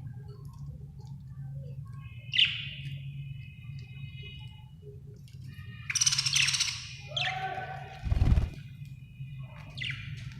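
Budgerigar chirping in short separate calls, with a longer, harsher call about six seconds in. A loud low thump comes about eight seconds in, over a steady low hum.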